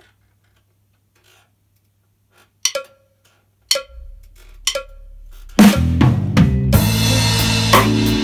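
Three count-in clicks about a second apart, then a drum kit comes in about five and a half seconds in, with bass drum, snare and cymbals, playing a blues groove over a backing track with bass.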